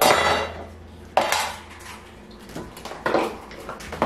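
Kitchen clatter: a stainless steel mixing bowl and utensils clanking on a countertop, four sharp strikes, each with a short ringing decay.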